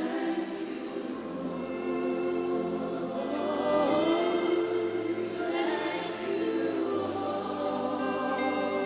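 Slow gospel worship music: a group of voices singing softly over sustained chords, with low bass notes changing every few seconds.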